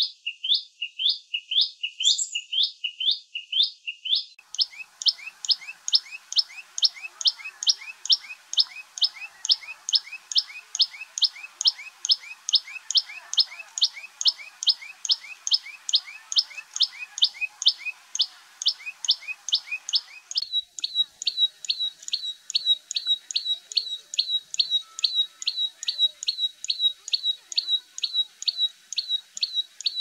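Common tailorbird calling: a sharp high note repeated about three times a second without a break. About two-thirds of the way in the notes become shorter and more clipped.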